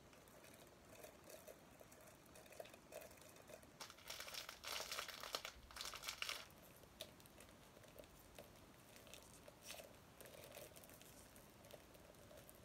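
Faint crinkling and rustling of packaging being unwrapped by hand, louder for about two seconds in the middle.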